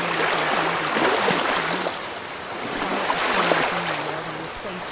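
Recorded ocean surf washing in and out, the rushing water swelling and easing twice. A faint low speaking voice runs underneath.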